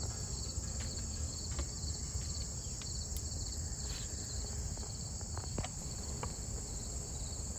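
Steady high-pitched chirring of field insects, with a low rumble underneath and a few faint clicks.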